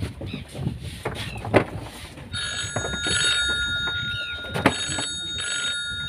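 Mobile phone ringtone ringing, starting about two seconds in: a chord of steady high tones that pulses on and off. A few sharp knocks come before and during it.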